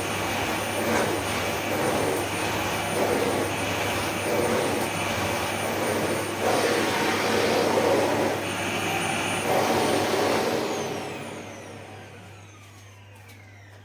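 Electrolux SilentPerformer Cyclonic canister vacuum cleaner running, its suction noise rising and falling as the nozzle is worked. About ten and a half seconds in it is switched off and the motor winds down with a falling whine.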